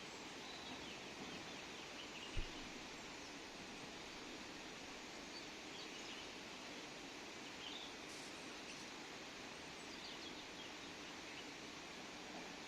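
Steady outdoor background noise with a few faint, short high chirps scattered through it, and one brief low thump about two seconds in.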